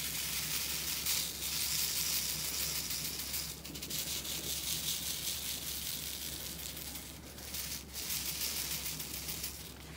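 Acrylic diamond painting drills shaken in a clear plastic grooved sorting tray: a continuous fine rattling hiss of many small beads sliding against the plastic, slowly fading. The shaking is what lines the drills up in rows along the tray's grooves.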